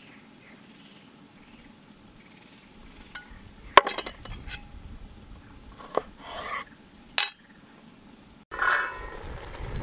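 Garlic cloves being peeled by hand over a wooden cutting board, with a few sharp clicks and knocks as the knife and cloves are handled on the board; the loudest click comes about four seconds in. Near the end the sound cuts out for a moment and a louder, noisier sound begins.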